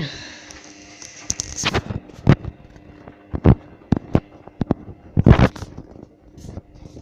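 Hoover Dynamic DYN9124DG front-loading washing machine early in its wash cycle. A hiss, typical of water filling, stops about a second and a half in. Irregular thuds follow as the drum turns, with a steady hum throughout.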